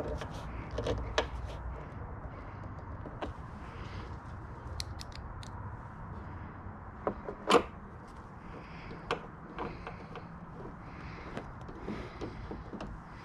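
Scattered clicks and knocks of a screwdriver working screws into the plastic rear bodywork of a motorcycle while a backrest is fastened down, with one sharper, louder knock about seven and a half seconds in.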